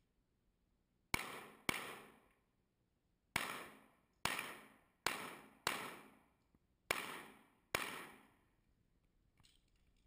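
Eight pistol shots, some in quick pairs and some single, each followed by a short ringing echo as the shooter works through a course of fire.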